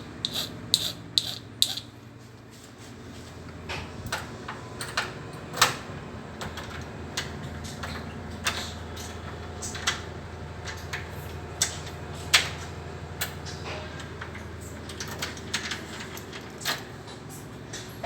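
Irregular sharp metallic clicks and taps from hand work on a tetra key and its lock. There is a quick run of ringing clinks in the first two seconds, then scattered single clicks over a low steady hum.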